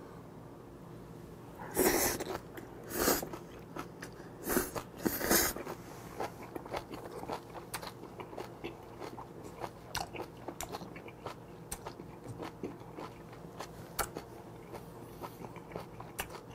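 Close-miked chewing of a mouthful of spicy octopus salad with blanched water dropwort and crisp vegetables: a few louder wet bites in the first six seconds, then steady softer chewing with many small wet clicks.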